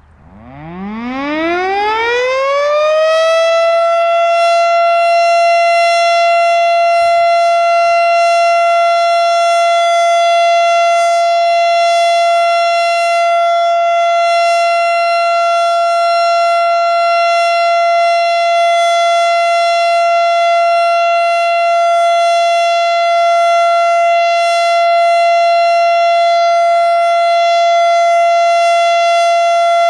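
Federal Signal STH-10 outdoor warning siren winding up from a low pitch to one high steady tone over about three seconds, then holding that tone: the steady Full Alert signal, sounded as a monthly test.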